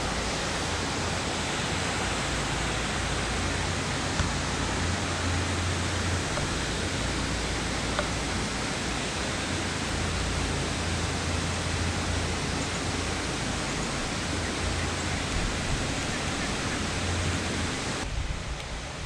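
Steady rush of flowing river water with a low rumble underneath, dropping in level about a second before the end.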